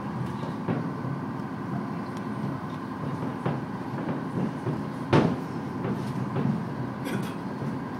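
Aerial fireworks shells bursting, heard from indoors behind glass as several short thuds, the loudest about five seconds in, over a steady low rumble.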